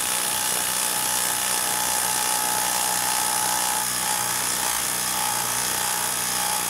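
Craftsman 20V brushless impact driver hammering steadily on speed 3, driving a 4-inch, half-inch lag screw through an impact socket into undrilled wood. It runs without a break under heavy load, a hard drive for the tool.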